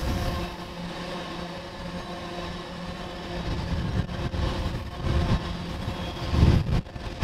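Tank cars of a freight train rolling past at speed: a steady rumble and rattle of steel wheels on rail, with a couple of heavier low thumps in the last two seconds.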